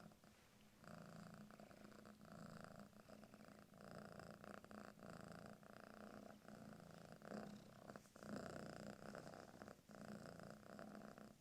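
Maine Coon kitten purring softly, in stretches of about a second broken by brief gaps.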